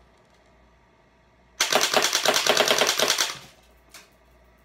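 Battery-powered, Uzi-style full-auto BB gun firing one burst of about a second and a half, a fast, even rattle of shots. A single small tick follows about a second later.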